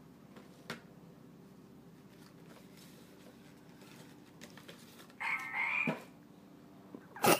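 A frog-themed sound greeting card's small speaker plays a recorded frog croak for under a second, about five seconds in. A sharp knock near the end is the loudest sound, with a couple of faint clicks of the card being handled earlier.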